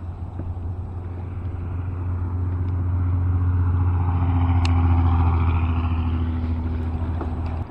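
A motor vehicle passing close by: a low engine rumble that builds to its loudest about five seconds in and then fades.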